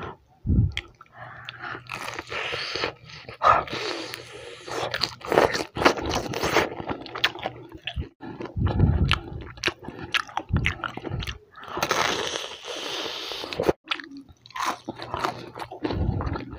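Biting and chewing crispy breaded fried chicken: crackling crunches of the fried coating, thickest about two to seven seconds in and again around twelve seconds, with chewing in between.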